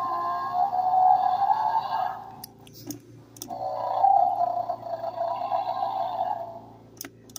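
Electronic dinosaur calls from the small speaker of a Mattel Jurassic World Dino Trackers Wild Roar Nigersaurus toy, played through its try-me box. There are two long calls of about three seconds each, with short sharp clicks between and after them.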